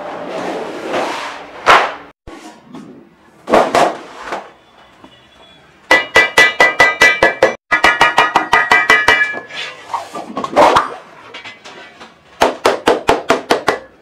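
Wooden mallet striking along the edge of a thin painted steel sheet laid over a bench edge, in quick runs of about five or six blows a second, the sheet ringing with each blow. Before that, the large sheet rattles and wobbles as it is lifted and flexed.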